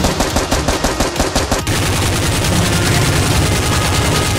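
Automatic gunfire sound effect dubbed over the Nerf blasters: rapid shots at about seven a second, turning into a denser, unbroken burst of fire about a second and a half in.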